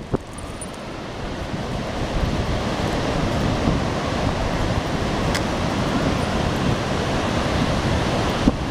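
Ocean surf washing onto the beach, mixed with wind buffeting the microphone, growing a little louder over the first two seconds.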